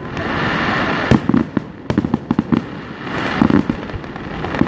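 Fireworks going off: a hissing crackle broken by a run of sharp bangs and pops, several in quick clusters.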